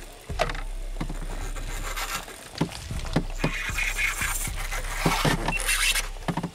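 Daiwa Exceler 3000 spinning reel clicking and grinding in irregular ticks while a hooked fish is fought on a float rig right after the bobber went down, over a low steady rumble.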